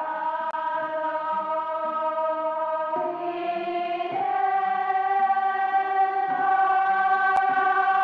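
Intro music of sustained choir-like chords over a lower figure of shorter repeated notes, shifting to a new chord about three seconds in and slowly growing louder.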